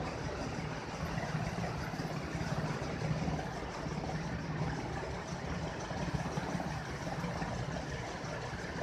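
A steady low mechanical hum over an even background noise, unchanging throughout.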